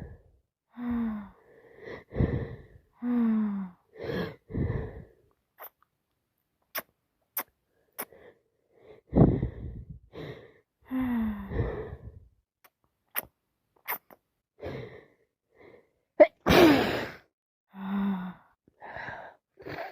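A woman with a cold sneezing over and over, each sneeze led by gasping, falling-pitched in-breaths; the biggest, loudest sneeze comes in the last few seconds.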